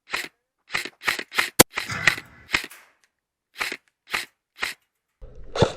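Airsoft rifle shots fired one at a time, about ten short sharp pops spaced irregularly over several seconds.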